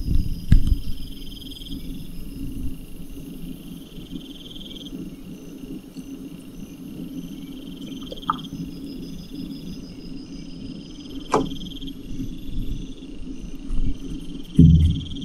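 High buzzing insect calls, each lasting about a second and repeating roughly every two seconds, over a steady low hum. A sharp click comes partway through and a louder low thump near the end.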